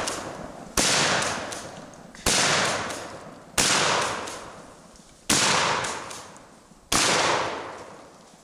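12-gauge pump-action shotgun fired five times in quick succession, about a second and a half apart, each loud shot trailing off in a long echo.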